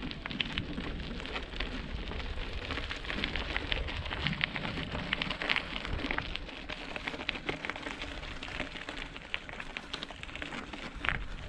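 Mountain bike tyres rolling uphill over a stony, gritty dirt track: a steady crackle of many small clicks from grit and pebbles, with a low rumble underneath.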